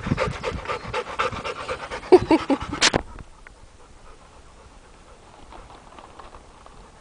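Dog panting fast and close up, about five breaths a second, with a short vocal sound a little after two seconds in. The panting stops abruptly about three seconds in.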